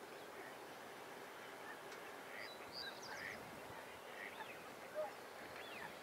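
Faint, scattered calls of waterfowl (ducks and distant swans), with a slightly louder call about five seconds in.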